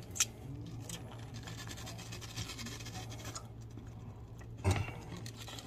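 Scratchy scraping and tearing as a northern puffer's skin is peeled back and pulled off the meat with a fork, over a steady low hum, with one brief louder sound near the end.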